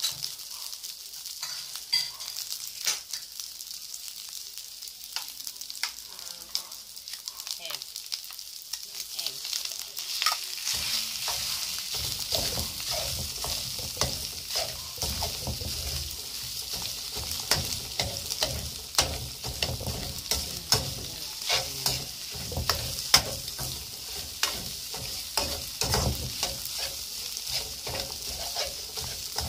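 Ham and egg frying in oil in a metal wok: a steady sizzle with a spatula repeatedly scraping and clinking against the pan. About ten seconds in, the stirring gets louder and fuller.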